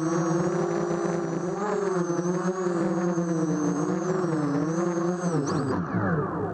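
Micro quadcopter's brushless motors (1811 2000kv with 5030 props) whining, the pitch wavering up and down as the throttle changes. About five and a half seconds in, the pitch falls steeply as the motors spin down while the quad comes down onto the grass.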